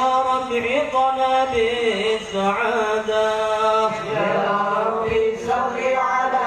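A man chanting Arabic sholawat, devotional praise of the Prophet Muhammad, without accompaniment, in long held notes that rise and fall.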